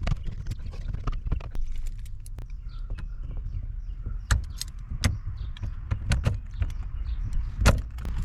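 Plastic steering-column cover being fitted around the column shifter: a series of irregular clicks and knocks over a low rumble, with one sharper knock near the end.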